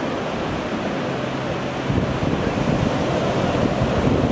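Sea surf breaking and washing up a sandy beach, a steady rushing that grows a little louder about two seconds in.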